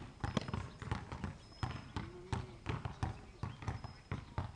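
Basketball dribbled hard on an outdoor hard court: a fast, uneven run of bounces, about three or four a second.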